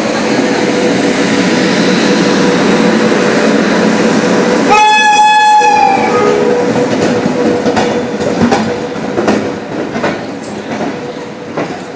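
WAP7 electric locomotive of the Indian Railways running past at the head of a passenger train, then sounding its horn once for about a second, a short meow-like honk that dips slightly at its end, about five seconds in. After it the coaches roll by with their wheels clicking over rail joints, fading toward the end.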